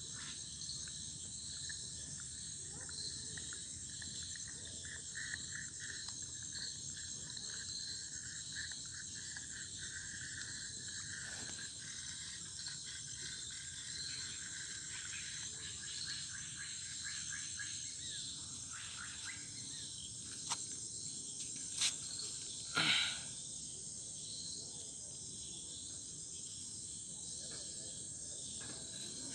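Evening insect chorus at a riverbank: a steady high-pitched shrill, with a lower pulsing trill from about five seconds in until about eighteen seconds. A few short sharp knocks come about two-thirds of the way through.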